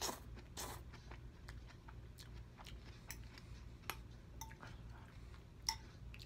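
Faint, close-up eating sounds: rice noodles slurped twice in the first second, then chewing and small mouth clicks. Near the end a metal fork clinks a couple of times against a glass bowl.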